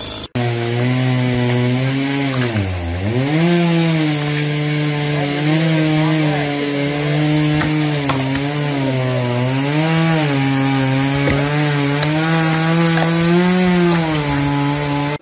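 Chainsaw running hard under load while cutting, a steady engine drone whose pitch wavers slightly and dips sharply then recovers about two and a half seconds in.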